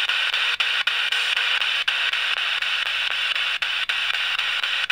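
A spirit box sweeping through radio frequencies: a steady hiss of radio static broken by short, irregular dropouts as it jumps from channel to channel.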